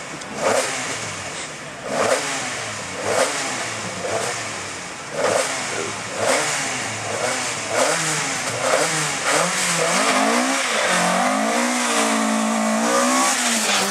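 Ford Escort Mk2 rally car's engine revved in short blips about once a second while held at the stage start, then running steadily louder as the car pulls away, its pitch rising and dipping.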